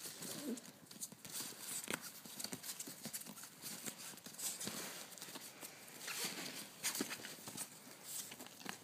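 Irregular rustling and scratching with scattered light clicks and knocks: a small puppy scrabbling and playing on the fabric floor and mesh walls of a pop-up playpen, a hand rubbing and wrestling with it.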